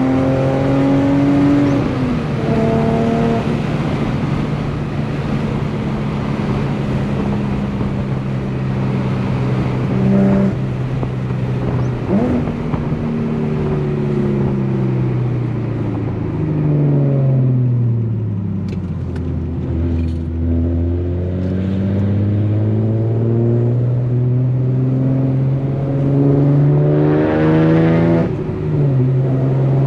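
Infiniti G37's V6 engine through an ISR Single Exit GT exhaust during a drive. Its revs step through gear changes, fall away to a low drone as the car slows, then climb steadily under acceleration before dropping with a shift near the end.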